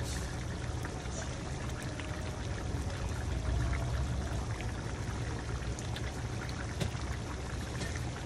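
Chicken curry simmering in a frying pan: the thick sauce bubbling with many small pops, over a steady low hum.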